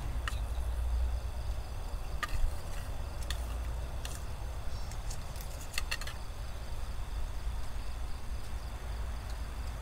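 A few short, sharp clicks of a spoon against a plate while someone eats, over a steady low rumble.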